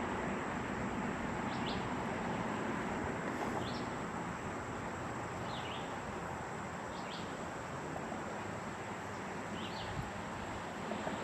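Short, high bird chirps, one every second or two, over a steady outdoor background hiss.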